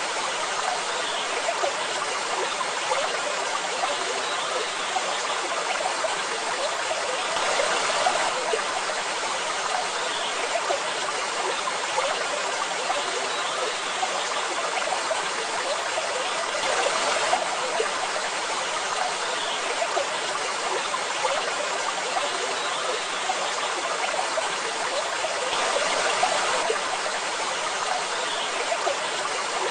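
Waterfall: a steady rush of falling water, swelling slightly about every nine seconds.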